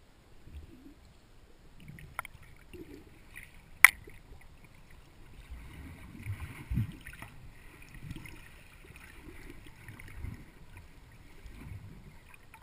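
Water heard through a camera in an underwater housing as it is carried through a lake by a swimmer: irregular muffled low thumps and swishes of moving water, with a small click about two seconds in and a sharp, louder click about four seconds in.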